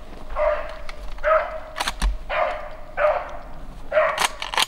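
A beagle baying on a rabbit's trail: about five loud, wavering cries, roughly one a second.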